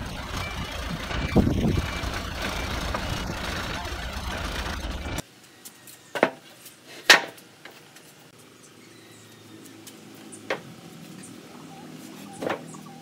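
A forklift's engine running for about five seconds, cut off abruptly, followed by wooden pallets being handled on a concrete floor: four sharp wooden knocks, the loudest about seven seconds in.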